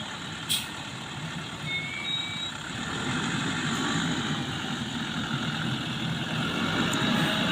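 An engine running steadily and getting louder about three seconds in, with a sharp click shortly after the start.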